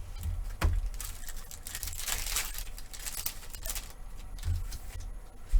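A foil trading-card pack being torn open and its wrapper crinkled, with a few light handling knocks.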